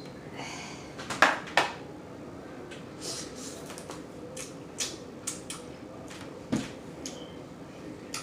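Close-up eating of steamed female blue crabs: irregular sharp cracks and clicks of shell being broken and picked apart, with wet mouth smacking. The two loudest cracks come close together a little over a second in.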